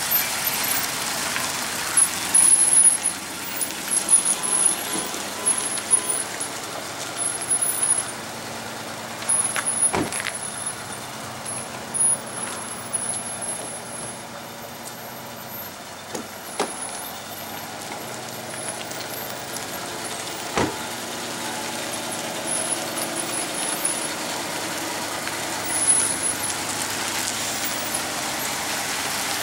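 1974 Ford F350's 390 V8 gas engine running as the truck drives off and comes back, louder and uneven in the first several seconds, fading as it moves away and growing again as it returns. Three sharp knocks are heard, about ten, sixteen and twenty seconds in.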